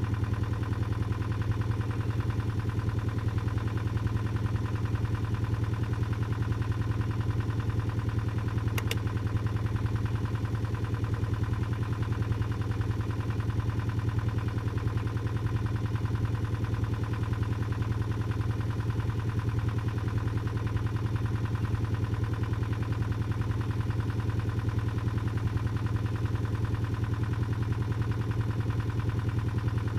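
An engine idling steadily: a low, even hum with a fast regular pulse that does not change. There is one faint click about nine seconds in.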